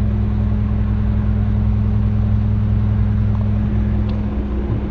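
Concrete mixer truck's diesel engine running steadily, easing down slightly near the end.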